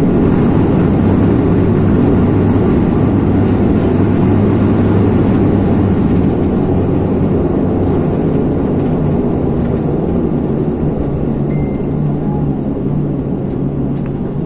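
Turboprop airliner's cabin noise on the landing roll: engines and propellers running loud and steady, with a low hum. It eases off a little over the last few seconds as the aircraft slows on the runway.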